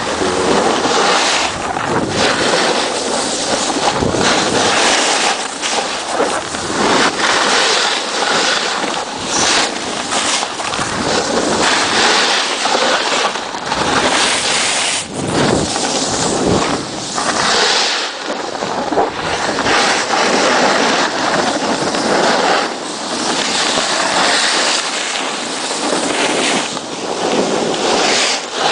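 Loud rush of wind buffeting the microphone, mixed with a snowboard scraping and sliding over hard-packed snow during a descent. The noise keeps surging and easing.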